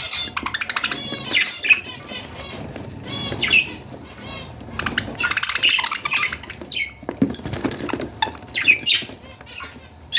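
Budgerigars calling in repeated runs of quick, pulsing chirps, typical of baby budgies begging for soft food.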